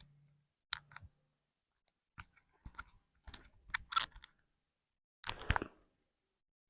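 Spinal joints cracking during a chiropractic back adjustment: a run of sharp little cracks and pops, the sharpest about four seconds in, then a longer crunching burst with a dull thump just after five seconds.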